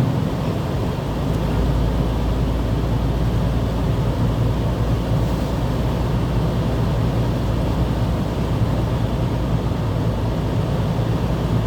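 Steady low drone of engine and road noise inside a moving vehicle's cabin.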